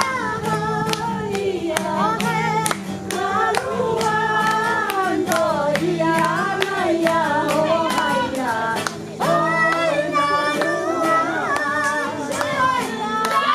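A group of people singing together over backing music, with hand claps.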